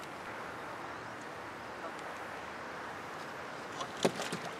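A steady rushing background with a few sharp knocks about four seconds in, as a hooked fish is lifted in over the side of a small boat.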